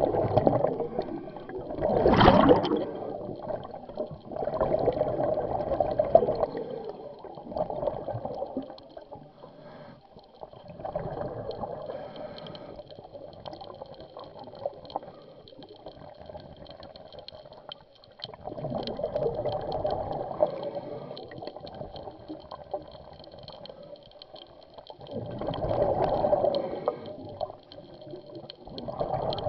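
Underwater scuba breathing: bursts of exhaled bubbles gurgling out of a diver's regulator every few seconds, with quieter gaps between breaths.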